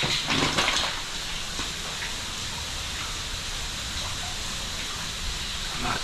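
Steady rush of running meltwater behind and under a frozen waterfall, with a few brief rustles in the first second.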